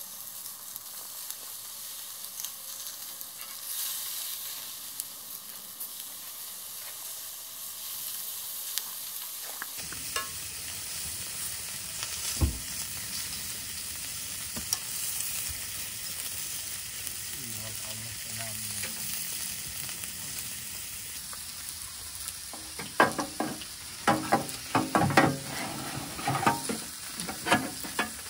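Food sizzling and frying in a pan on a camp stove, a steady hiss, with a run of sharp knocks and scrapes near the end as it is stirred.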